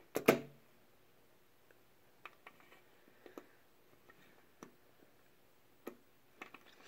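Greenlight diecast model car set down on a glass tabletop with a sharp tap, then a few faint clicks and ticks as it is nudged about on the glass.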